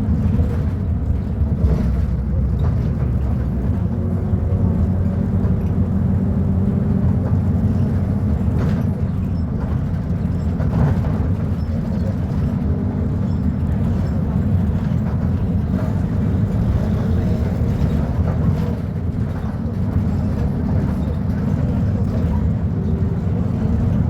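Diesel engine of a Volvo B290RLE city bus running steadily, a continuous low drone.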